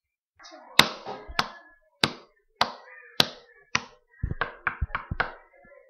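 A series of sharp taps or knocks, about one every half second or so, then a quicker run of taps near the end.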